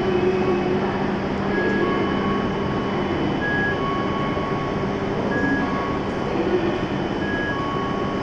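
A two-note high-low door chime repeats about every two seconds as the platform screen doors open, over the steady hum of a stopped E7-series Shinkansen train.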